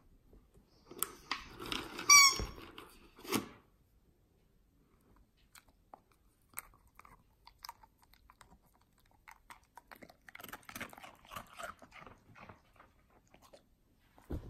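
A rubber squeaky ball squeaks sharply as a border collie bites it, about two seconds in. From about ten seconds in, the dog crunches a hard treat, a fish cookie, in a quick run of short crisp crunches.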